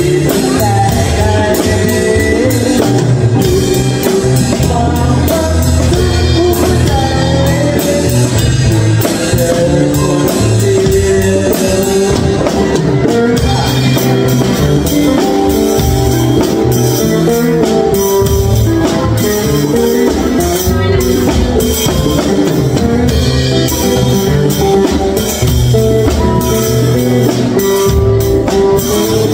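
A live jam of a Yamaha drum kit and an acoustic guitar, the drums keeping a steady beat with cymbals under strummed guitar, with a voice singing along.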